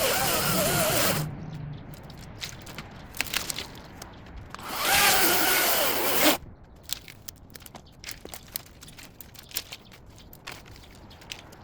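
Ego battery-powered chainsaw running and cutting in two bursts: one that stops about a second in, and another that swells up about four and a half seconds in and cuts off sharply near six and a half seconds. Between and after the bursts, branches and brush crackle and snap.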